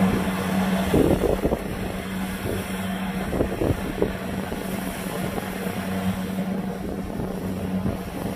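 Kubota DC70 rice combine harvester's diesel engine running at a steady hum while it cuts and threshes rice.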